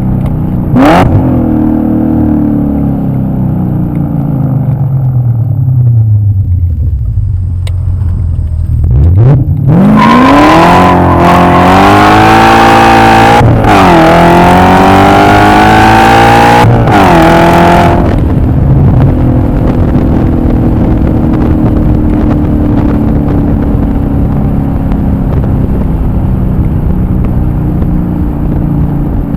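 BMW E39 M5's 4.9-litre V8 engine: it winds down while coasting, then revs up hard under full acceleration through two upshifts, each heard as a sudden dip in pitch. It then settles into a steady cruise.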